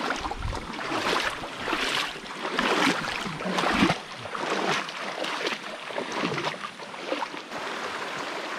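River water splashing and sloshing in surges about once a second as people wade through it, over the steady rush of the flowing stream; near the end the splashing stops, leaving the even rush of the stream.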